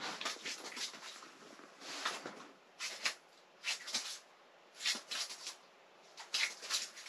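Clothing rustling against the microphone in short bursts about once a second, in time with the angler jigging an ice-fishing rod.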